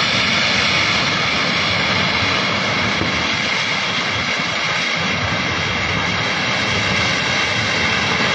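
Floodwater of a swollen river rushing past with a loud, steady roar.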